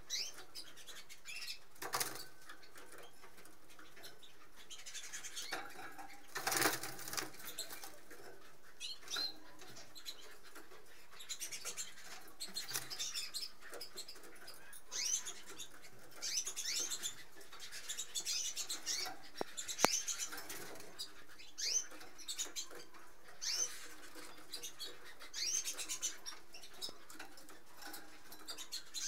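Two caged red mosaic topaz canaries chirping in short, high twittering bursts on and off, with a few brief wing flutters as they move about the cage. The loudest flutter comes about six and a half seconds in.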